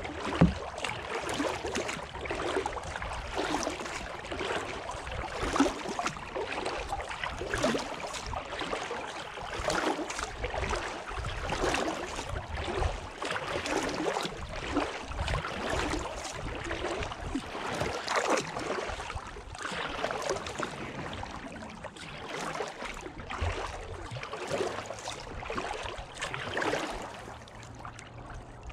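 Kayak paddling on calm water: the paddle blades dip and pull through the water, with splashes and trickling drips, a stroke every second or two. There is one sharp knock about half a second in.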